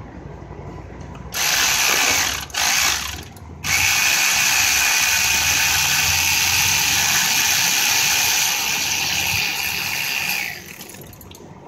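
Electric ratchet running in two short bursts, then one long steady run of about seven seconds, spinning out a compressor mounting bolt.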